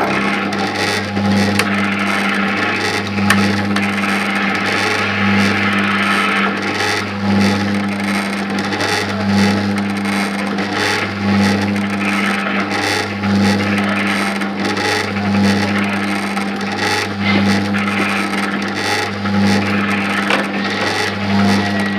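Falgas Funny Train coin-operated kiddie ride running: a steady motor hum with a pulse about once a second, under a rough, rattling mechanical noise.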